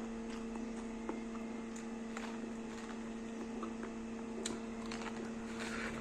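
A steady electrical hum, with a few faint clicks.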